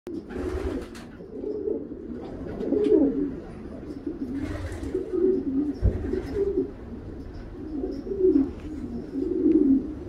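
Racing pigeon cock cooing repeatedly in low, throaty phrases, the courting coo of a cock put next to a new hen. Two short rustles are also heard, one near the start and one about halfway.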